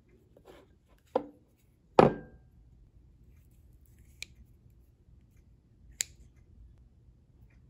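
Knife and glass bowl knocking against each other and the table as a powdered rice cake is slit open: two sharp knocks about one and two seconds in, the second the loudest with a short ring, then two lighter clicks.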